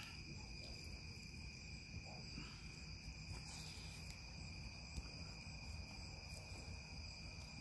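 Crickets chirping in a steady, continuous chorus, a constant high trill over a faint low background rumble.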